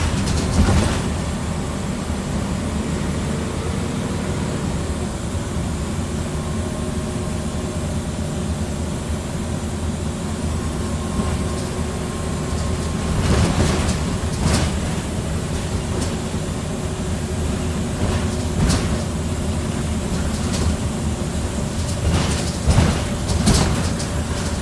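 Scania N94UB single-decker bus under way, its rear-mounted diesel engine running with a steady low drone. The body rattles and knocks now and then, in clusters about halfway through and again near the end.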